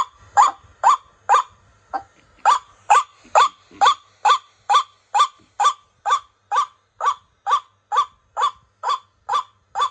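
Recorded white-breasted waterhen (cuốc) calls played through an AT109 bird-trapping loudspeaker. A short, downward-sliding call repeats steadily about twice a second, as a lure for trapping waterhens.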